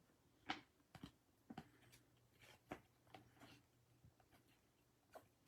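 Faint, irregular light clicks and flicks of 2020 Topps Chrome baseball cards being handled and flipped through one at a time.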